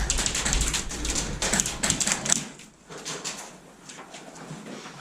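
Airsoft gunfire: rapid, irregular clicking and clacking of shots and BBs striking surfaces, dense for about the first two and a half seconds, then sparser and quieter.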